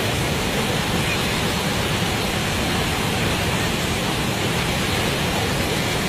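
Athirapally Falls in spate: a great volume of brown floodwater plunging over the falls, a loud, steady, unbroken rushing of water.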